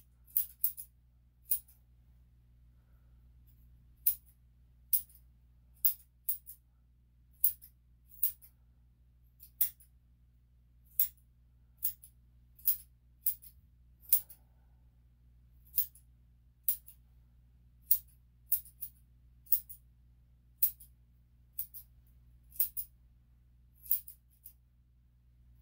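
Grooming scissors snipping the hair on a Shih Tzu's paw: crisp metallic snips, irregular, about one or two a second and sometimes in quick pairs, over a faint steady low hum.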